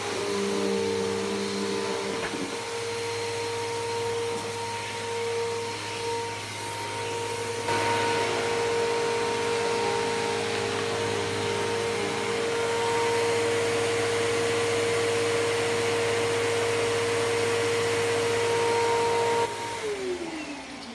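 Bissell PowerForce Helix Turbo upright vacuum running steadily with a motor hum and a high whine, a little louder from about eight seconds in. Near the end it is switched off and the motor winds down, its pitch falling.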